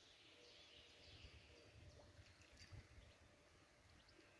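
Near silence: faint distant birdsong, a few short chirps, over a low rumble.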